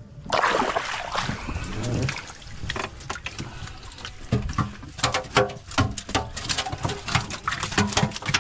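Water splashing and sloshing. It starts suddenly just after the start, with many short, sharp splashes after it.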